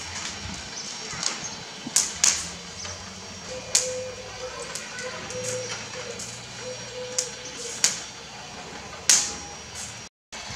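Charcoal fire under rotisserie meat, crackling with about seven sharp, irregular pops over a low steady hiss.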